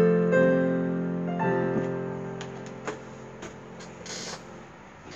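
Digital piano playing its final chords: a chord struck at the start, another about a second and a half in, held and left to fade away. A few light clicks and a short rustle follow near the end.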